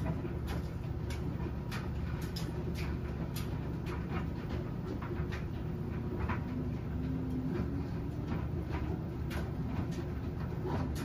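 Washing machine running with a steady low hum. Over it comes a string of short sharp clicks, about two a second, and a brief low whine about seven seconds in.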